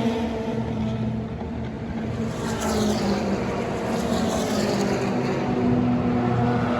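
Endurance race cars' engines on a circuit: one car's note falls away just after it passes, others keep running further off, and another car's engine rises as it approaches near the end.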